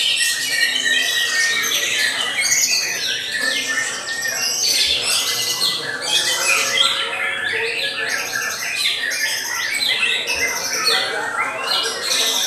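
White-rumped shamas singing: a dense, unbroken run of overlapping fast whistles and chattering phrases.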